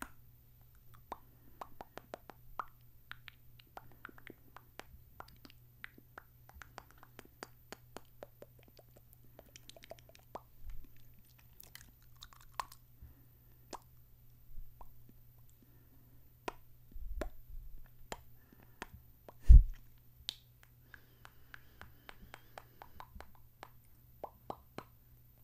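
Close-miked ASMR mouth sounds: a steady run of wet kisses, smooches and lip smacks, several every second. About two-thirds of the way through, one much louder thump breaks in.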